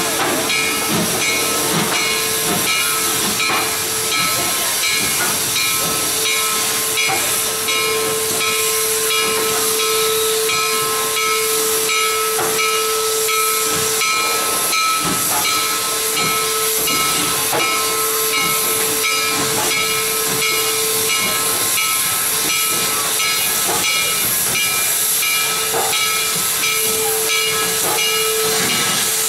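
2-8-0 steam locomotive Western Maryland 734 (ex-Lake Superior & Ishpeming No. 34) venting steam with a steady hiss. A faint steady tone comes and goes over it several times.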